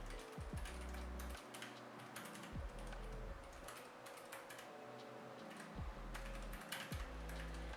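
Typing on a Keychron K3 v2 low-profile mechanical keyboard fitted with Keychron's own brown optical switches and ABS keycaps: a quick, irregular run of key clicks.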